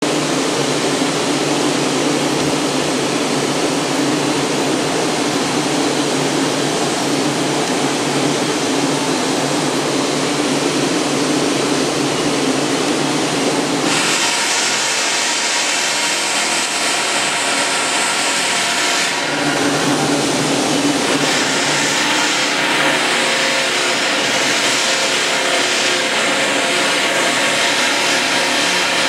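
Steady, loud mechanical noise with a low hum. About halfway through it changes to a brighter, hissing sound.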